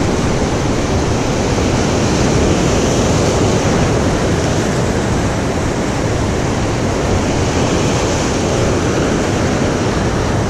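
Rough sea surf breaking over rocks and churning into foam just below: a steady, loud rush of water.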